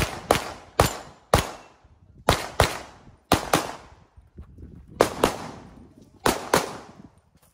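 Handgun shots fired in quick pairs, about a dozen in all, with a second or so between pairs as the shooter moves between targets. Each shot is a sharp crack with a short echo tail.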